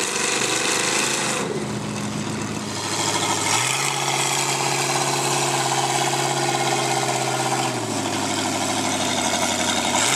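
Lifted mud truck's engine running, its pitch rising and falling in the first second or so. About three and a half seconds in it climbs to a higher, steady pitch, holds it for about four seconds, and drops back near the end.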